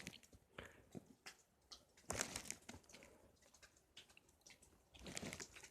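Near silence, with a few faint ticks and two brief soft rustles, about two seconds in and near the end, from a butane lighter being held and pressed inside a cupped hand.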